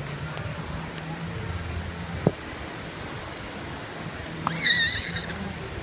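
Steady rain falling on wet pavement, an even hiss throughout. A single sharp click about two seconds in, and a child's high-pitched squeal near the end.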